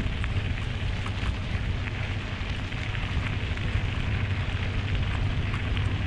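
Wind buffeting an action camera's microphone on a moving mountain bike, a steady low rumble, with small crackles of tyres rolling over a gravel trail.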